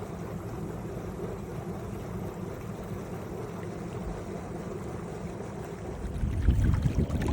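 Steady low rumbling noise, then water splashing and pouring, louder from about six seconds in.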